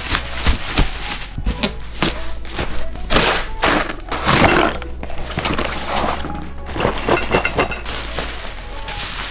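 Bubble wrap crinkling and crackling in irregular bursts as hands handle it, with cardboard box flaps rubbing. Background music plays underneath.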